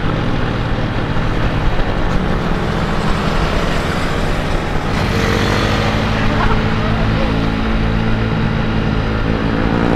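Yamaha Mio automatic scooter's single-cylinder engine running steadily at cruising speed, with wind and road noise, heard from a camera mounted on the scooter. The sound shifts about halfway through.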